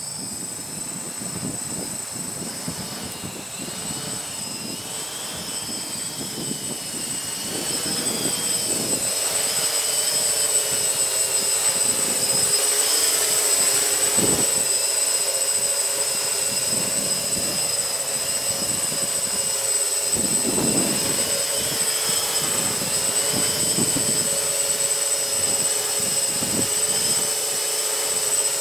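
Multirotor drone's electric motors and propellers whining steadily, the pitch wavering slightly as the motors correct against gusts, with wind buffeting the microphone. It gets louder about eight seconds in.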